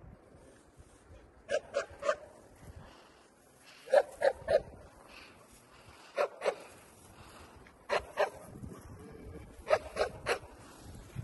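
A dog barking in short runs of two or three barks, a run every couple of seconds.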